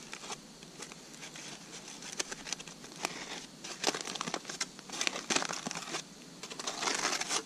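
Aluminium foil crinkling and rustling as a foil packet is unfolded and pulled open by hand: irregular sharp crackles, busiest from about the middle on.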